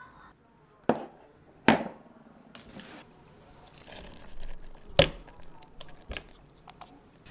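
Chopped cabbage and carrot scraped out of a plastic food-chopper container into a glass bowl with a wooden spatula. There are four sharp knocks against the containers, the loudest about two seconds and five seconds in, and a soft rustle of the falling vegetables between them.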